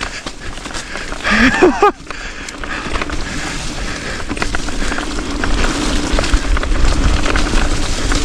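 Wind buffeting an action camera's microphone, with low rumbling and scattered clicks and rattles from moving over a rough trail. A short voice-like cry about a second and a half in.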